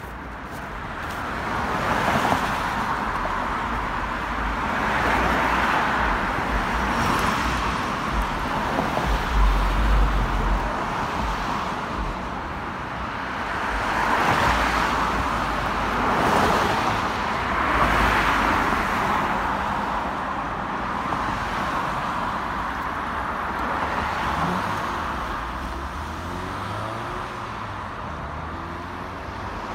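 Road traffic: cars passing one after another, the tyre and engine noise swelling and fading every few seconds, with a brief low rumble about a third of the way through.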